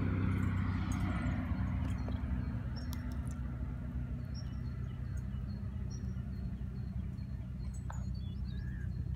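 Water pouring from a camping kettle into a metal mug; the pouring fades out about two seconds in. A steady low hum runs underneath, with a few faint bird chirps later on.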